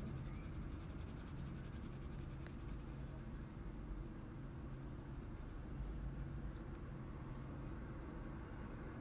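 Faint, steady scratching of a light phthalo green Polychromos coloured pencil shading across kraft card, the pencil held low on its side.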